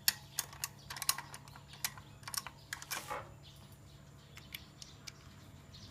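Irregular light clicks and taps of small hand tools and tyre parts being handled, busiest in the first three seconds and sparser after, over a faint low steady hum.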